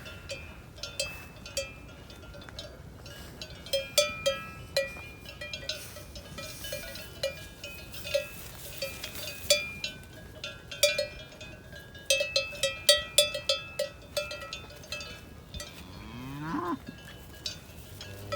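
Cowbells on grazing cattle clanking in an irregular stream of ringing strikes, with one cow mooing briefly near the end.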